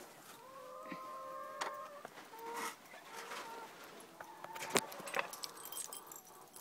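Hens calling from inside a coop in several long, drawn-out calls, while metal bolts and keys click and rattle as the coop is unlocked, with the sharpest knock a bit under five seconds in.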